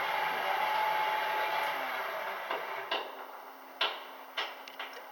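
Platform lift drive running with a steady whirring hum that fades away about three seconds in as the platform stops. A few sharp clicks and knocks follow.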